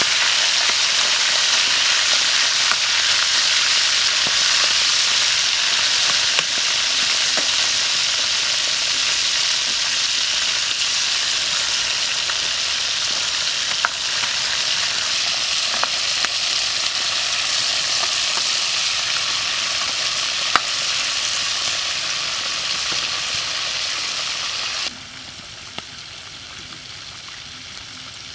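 Chicken pieces frying in hot oil in a steel wok, a steady sizzle, with occasional sharp clicks of a metal ladle against the wok as they are turned. Near the end the sizzle cuts off abruptly, leaving a much quieter background.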